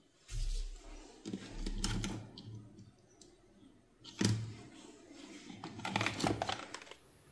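Irregular clicks, knocks and light rattles of small hard objects being handled on a workbench, with the sharpest knock a little after four seconds in and a quick cluster of clicks near the end.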